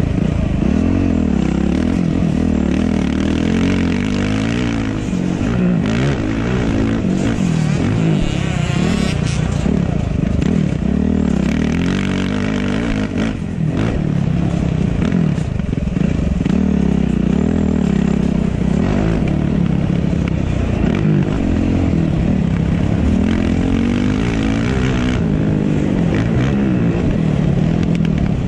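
2005 Yamaha YZ450F four-stroke single-cylinder motocross engine under hard riding, its revs rising and falling over and over, heard from a helmet camera on the rider.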